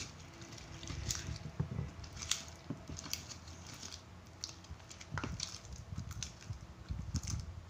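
Plastic spoon stirring white glue and slime activator in a plastic bowl: irregular soft wet squishing with scattered light clicks of spoon on bowl.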